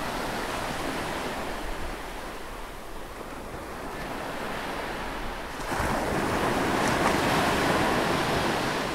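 Ocean waves: a steady wash of surf that swells louder about six seconds in and eases again near the end.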